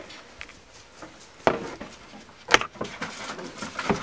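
Three sharp bangs about a second apart, the second the loudest: noises made on purpose to get young puppies used to sudden sounds.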